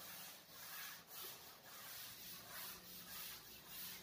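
Chalkboard duster wiping chalk off a chalkboard: faint, repeated rubbing strokes about twice a second as the board is erased.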